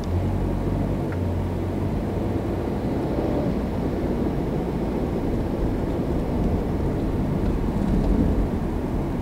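Car engine and road noise heard from inside a moving car: a steady low rumble that steps up in loudness at the start as the car moves off in traffic.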